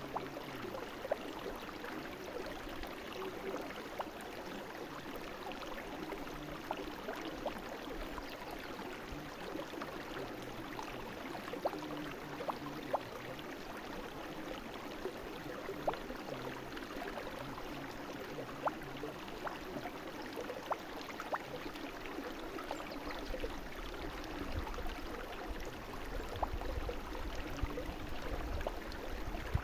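Small brook flowing and babbling: a steady rush of water with frequent small splashes and drips. A low rumble joins in about two-thirds of the way through.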